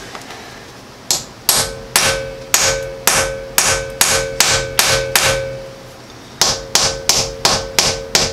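A hammer striking metal, about two blows a second, each blow ringing. There are two runs of blows with a short pause between them.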